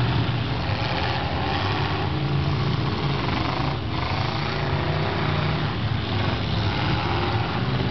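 Several demolition derby cars' engines running loudly and revving, their pitch rising and falling as the cars push against each other.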